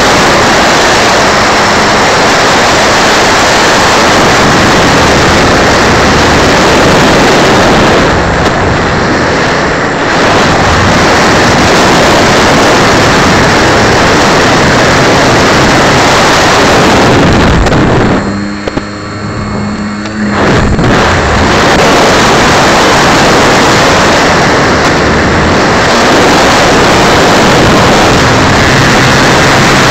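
Loud, steady rush of wind and the electric motor and propeller picked up by a small camera riding on a radio-controlled model plane in flight. The noise drops for about two seconds past the middle, where a few steady tones show through, then comes back at full level.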